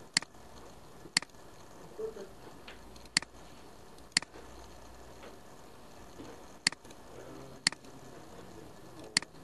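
Computer mouse clicks: seven sharp single clicks, mostly in pairs about a second apart, over a faint steady hiss.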